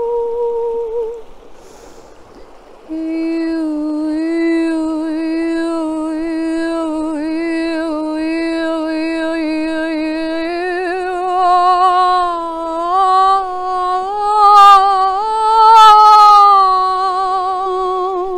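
A woman's voice toning long, wordless sustained notes with a wavering vibrato. It stops about a second in and comes back on a lower note, then climbs in steps and grows louder toward the end.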